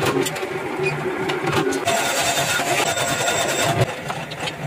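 A motor-driven metal-bending machine running steadily as it forms a flat steel strip, with a few sharp metal clicks.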